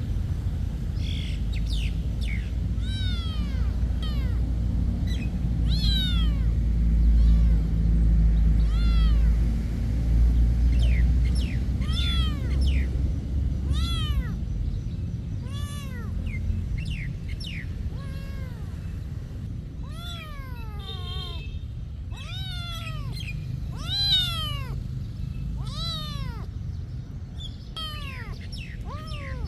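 A cat meowing over and over, one arched call about every second, each rising and then falling in pitch. A low rumble of background noise runs underneath, loudest in the first half.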